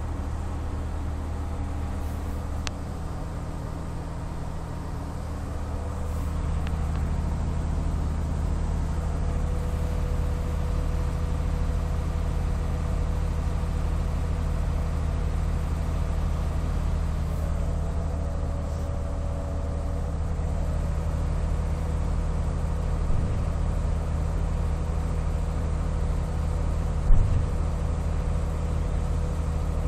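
A steady low mechanical drone with a constant hum, shifting and growing slightly louder about six seconds in. A short knock comes near the end.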